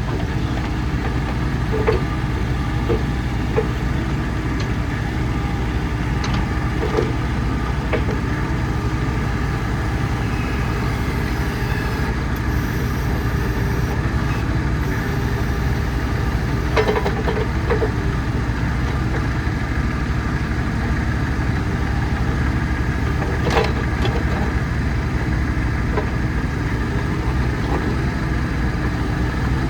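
Bobcat E35 mini excavator's diesel engine idling steadily, with a few brief knocks from the machine now and then.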